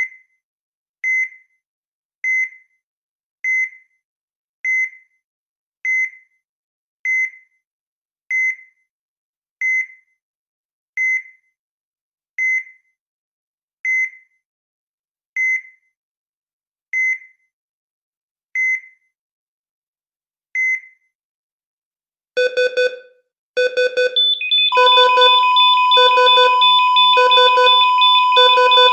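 EKG heart monitor beeping once per heartbeat, about a beep a second at first, the gaps slowly widening to about two seconds. After a short pause a rapid pulsing alarm of several tones sets in, with a steady unbroken tone under it, as at a flatline.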